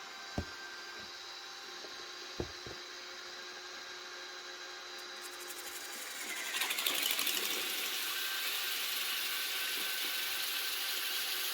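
Xiaomi Mi Robot Vacuum-Mop Essential running: a steady motor whir with two sharp knocks in the first few seconds. About six seconds in it turns clearly louder, with a steady hissing whir.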